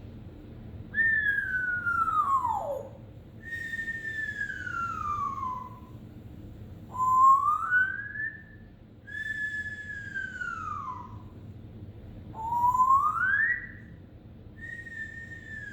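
African grey parrot whistling a series of six long sliding whistles, alternately falling and rising in pitch.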